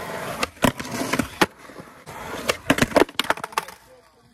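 Skateboard wheels rolling on concrete, then a quick cluster of sharp wooden clacks and knocks as the trick fails: the board strikes the ledge and clatters away while the skater falls onto the ledge, and the wheels roll off into quiet near the end.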